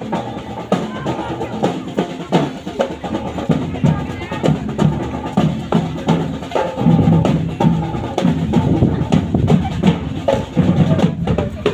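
Loud barongan accompaniment music: drums and bass drum beating steadily under a pitched melody, growing busier about seven seconds in.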